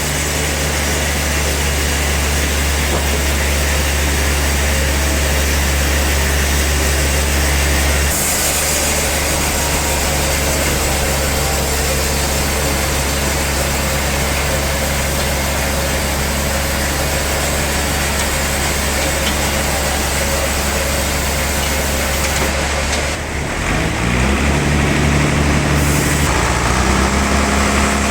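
Sawmill log saw and its machinery running steadily, a low motor hum under a dense hiss of cutting. About 23 seconds in the sound dips briefly, then the motor tones shift and climb in steps.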